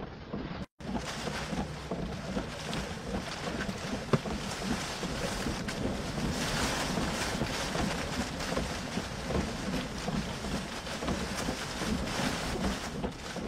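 Strong wind and rain making a steady rushing noise on the microphone, with one sharp click about four seconds in; the audio drops out for an instant just under a second in.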